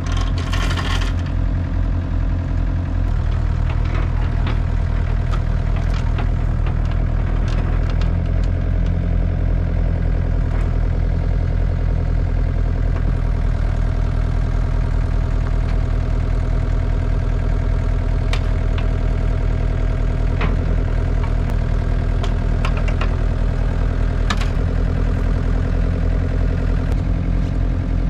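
Diesel engine of a Cat 307SSR mini excavator running steadily, picking up speed about three seconds in, with a short hiss near the start and scattered light clanks.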